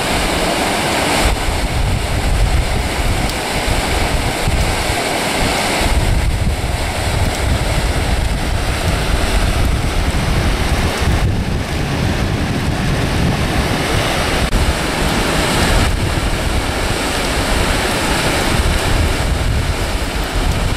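Muddy floodwater rushing through an open canal excavation, a steady loud noise with wind buffeting the microphone.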